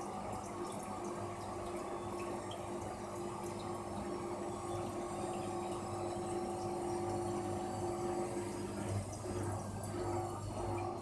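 Aquarium filter running: a steady low electric hum under continuous trickling water.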